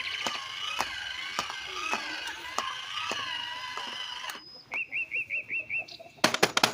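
Bird-like chirping and wavering whistles over a regular tick, then five quick rising chirps, then a burst of sharp clicks near the end.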